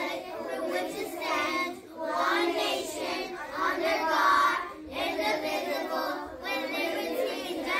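A class of young children reciting the Pledge of Allegiance together in unison, phrase by phrase with brief pauses between.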